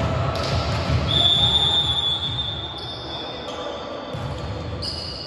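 Referee's whistle: one long, steady blast starting about a second in, echoing in a large sports hall, signalling the serve. Hall noise from players and spectators runs underneath.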